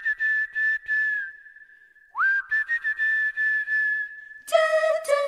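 Film-song intro music: a high whistled melody line slides up into a long held note, twice, over a beat of short hits about four a second. Near the end a louder, lower melody instrument comes in.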